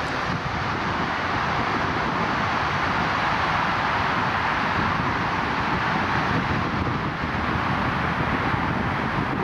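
Airbus A330-300's Rolls-Royce Trent 700 jet engines running at taxi power, a steady rushing jet noise as the airliner taxis.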